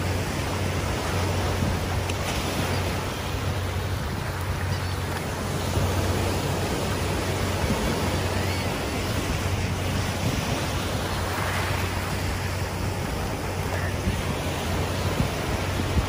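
Small surf breaking and washing up over the sand at the water's edge, a steady wash of sound, with wind buffeting the microphone.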